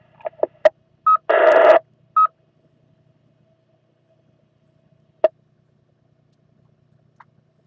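Amateur radio repeater heard through a receiver as a station unkeys: a few short clicks, a brief beep, a half-second burst of squelch noise, a second matching beep, then a faint steady tone and a single click about five seconds in.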